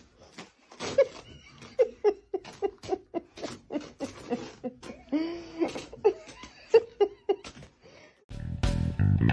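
A string of short, pitched voice sounds, one after another, mixed with small clicks. Music with bass guitar and guitar starts about eight seconds in.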